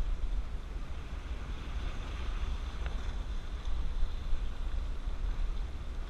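Wind buffeting the camera microphone in a steady low rumble, with sea waves washing over shoreline rocks.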